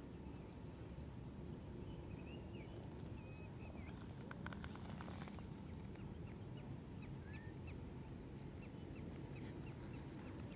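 Faint wild birdsong: many short high chirps and a few bending whistled notes, with a quick run of sharper calls about four seconds in, over a steady low background rumble.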